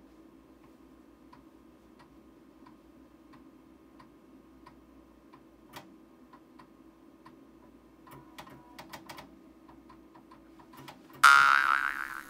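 PC-98 DO's floppy disk drive ticking about three times a second while booting MS-DOS, then a short run of louder clicks, over a steady low hum from the running computer. About a second before the end, a loud, sudden ringing sound effect cuts in and fades.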